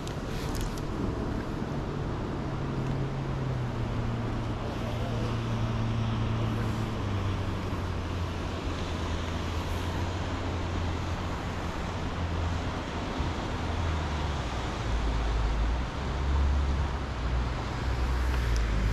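A boat motor drones steadily and drops in pitch about fifteen seconds in, over a steady rushing noise.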